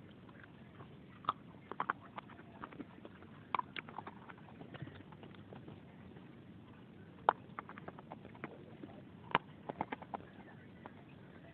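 Dry clay chunks bitten and crunched close to a lapel microphone: irregular sharp cracks and snaps, the two loudest about seven and nine seconds in, with quieter crunching between.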